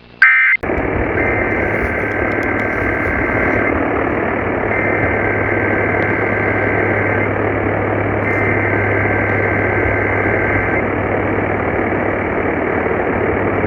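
A brief loud burst of EAS digital data tones right at the start, then steady radio static with a low hum. Through the static come three SAME data bursts, rapid two-tone warbling data tones about two and a half seconds each and about a second apart, the header of an Emergency Alert System message.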